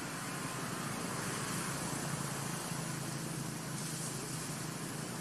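Steady background noise: a constant hiss with a low hum underneath, and no distinct events.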